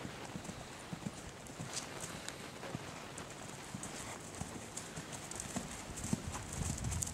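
Hoofbeats of a ridden horse trotting on the sandy dirt footing of an arena: a steady run of soft, uneven footfalls.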